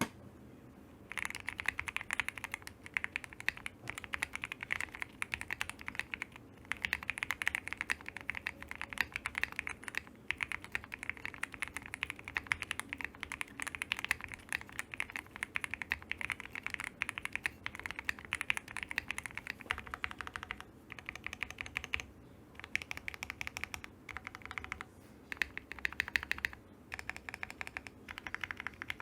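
Typing on a KBDfans Odin V2 mechanical keyboard with Gateron Oil King linear switches on a polycarbonate plate and PBT Cherry-profile keycaps. A dense, fast run of keystrokes starts about a second in and breaks off in a few brief pauses.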